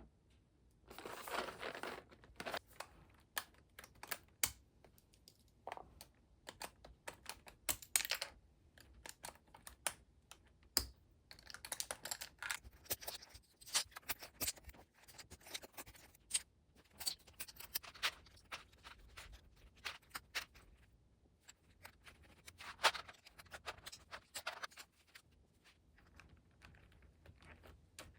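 Typing on a mechanical keyboard: many irregular key clicks, with stretches of denser rustling among them.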